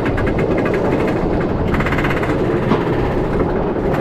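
Iron Gwazi roller coaster train climbing the lift hill, its anti-rollback system clacking in a rapid, even run of clicks over a steady rumble. The anti-rollback system is the safety device that stops the train rolling back down the lift.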